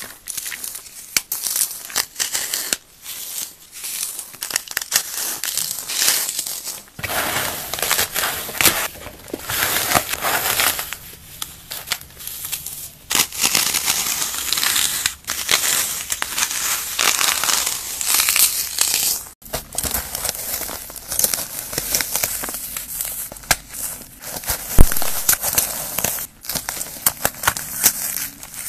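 Hands crushing and crumbling paste-coated floral foam, a dense crunchy crackle of brittle foam breaking apart. The sound changes abruptly twice, about seven seconds in and again about two thirds of the way through.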